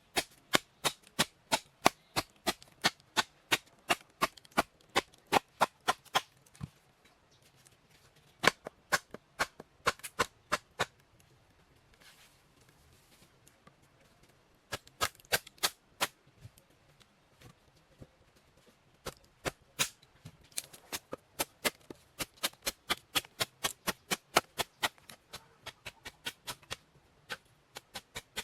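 Runs of quick, sharp strikes, about three a second, broken by short pauses: a hand tool chopping or tapping on wood or bamboo.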